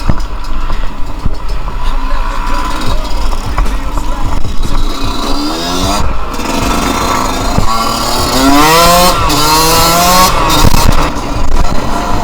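Yamaha YZ125's two-stroke single-cylinder engine revving as the dirt bike accelerates, its pitch climbing several times as it pulls through the gears, under a constant low rumble of wind on the helmet camera.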